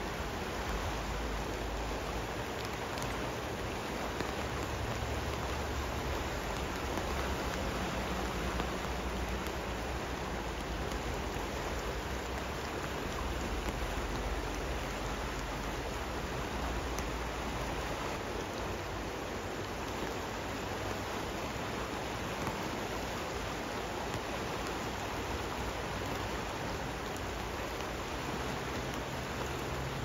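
Steady rain falling with a river running beneath it: an even hiss with faint scattered ticks of drops.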